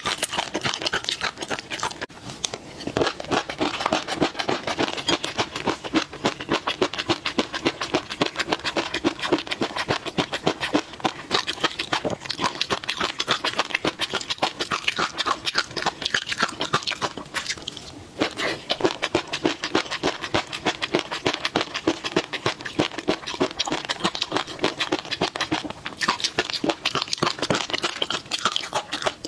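Close-miked eating of peanut sauce: a dense, steady run of wet chewing, lip-smacking and mouth clicks, with a spoon now and then stirring and scraping in a glass bowl.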